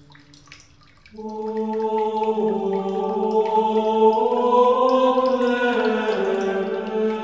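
A single voice chanting one long held note that starts about a second in, its pitch rising in the middle and sinking back down near the end.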